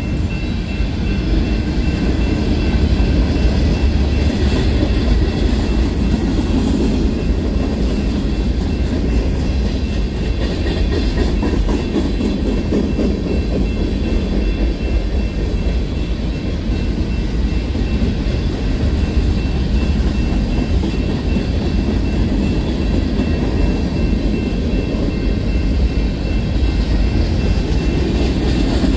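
Union Pacific freight train cars rolling past on the track: a steady rumble of steel wheels on rail, with a faint steady high whine.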